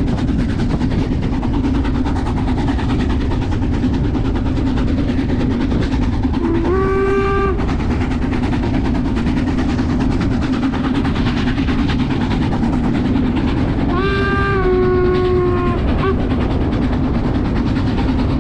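Steam train of the metre-gauge Brocken railway running with a steady rumble, its steam whistle blowing twice: a short blast about a third of the way in and a longer blast of about two seconds later on, dipping slightly in pitch partway through.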